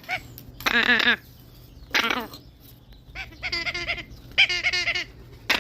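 Pet parrot calling in about five short bouts of rapid, repeated, wavering squawks, with brief pauses between them.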